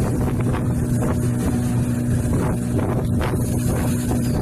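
Motor boat engine running at a steady speed under way, with the wake splashing and rushing past the hull and wind buffeting the microphone.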